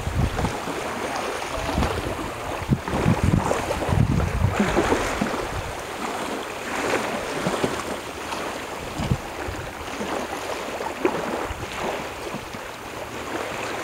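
Wind buffeting the microphone in low gusts, heaviest in the first few seconds, over a steady wash of small waves lapping in shallow water.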